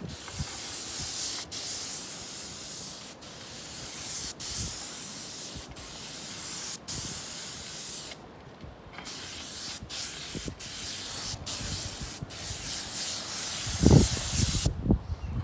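Airless paint spray gun spraying primer onto concrete roof tiles: a steady high hiss in long passes, cut by brief breaks as the trigger is let off and a pause of about a second midway, stopping shortly before the end. A few low thumps, the loudest sound, come near the end.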